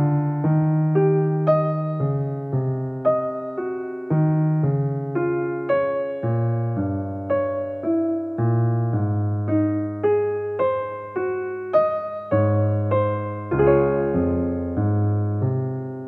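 Background piano music: a slow, gentle melody of single notes, about two a second, over held bass notes.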